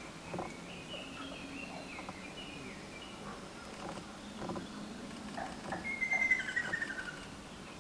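Ruddy kingfisher giving its falling, rolling kyorororo call, loudest about six seconds in, with fainter bird calls before it.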